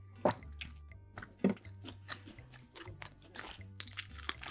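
Close-miked chewing and mouth sounds, then a crunchy bite into a toasted sandwich about four seconds in. Background music with a steady bass line plays underneath.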